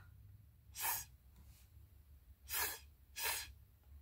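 Three short puffs of breath blown through a plastic drinking straw onto wet watercolor paint, one about a second in and two close together near the end.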